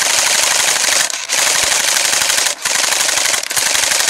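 Black Ops Cottonmouth AK-74 battery-powered airsoft gun firing on full auto: a fast, loud rattle of shots in four long bursts with short breaks between them.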